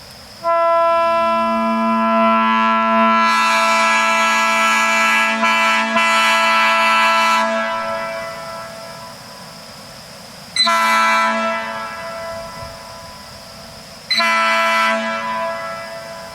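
Nathan AirChime P3 train horn with three cast bells (P0, P1, P2) and double diaphragms, sounding an A major chord an octave below the usual P3. It gives one long blast of about seven seconds, in which the lowest note comes in a moment after the higher ones and is the strongest, then two short blasts.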